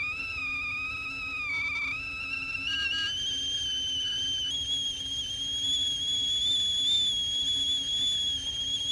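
Cartoon whistle sound effect: one long, wavering whistle tone that slowly climbs in pitch.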